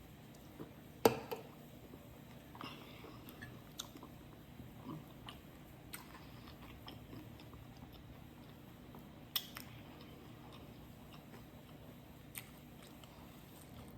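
Close-up chewing and biting sounds of a person eating, with scattered sharp mouth clicks. The loudest click comes about a second in and another about nine seconds in.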